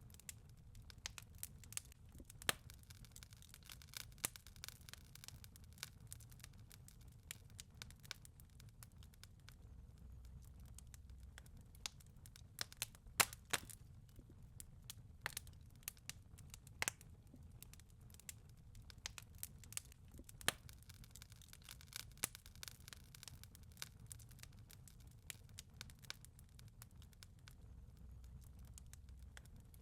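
Wood fire crackling in a fireplace: irregular snaps and pops over a soft low rumble.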